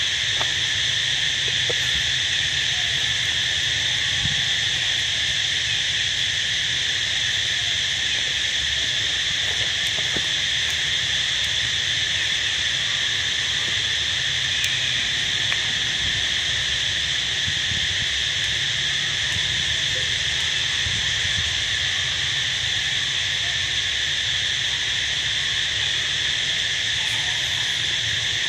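A steady chorus of insects: a high, unbroken buzz that holds an even level, over a low rumble.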